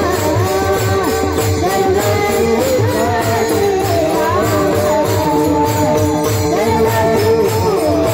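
Marathi Varkari devotional song (panchapadi) sung live, the melody wavering over a steady harmonium drone, with regular strokes on a pakhawaj barrel drum and a steady beat of small brass hand cymbals (taal) clashing in time.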